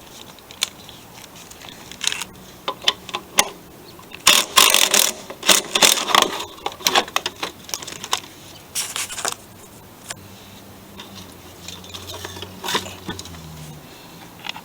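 Hand work on a lawn mower's rear wheel and drive parts: irregular clicks, knocks and rattles of handled metal and plastic, busiest from about four to seven seconds in.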